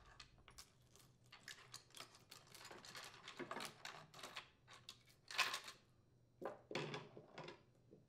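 Steel saw chain links rattling and clinking faintly as the chain is pulled off a chainsaw guide bar and gathered in the hand, in many small irregular clicks with a few louder clacks past the middle.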